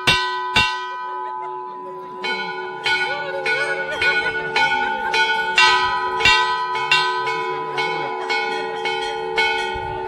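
Temple bells struck again and again, each stroke leaving several tones ringing on and overlapping the next. After two strokes there is a short lull, then the ringing resumes at about two strokes a second.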